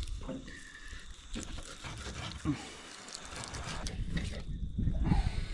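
Dive knife cutting a kahawai fillet away from the backbone on a wooden cutting board: soft scraping and small taps, over a steady low rumble.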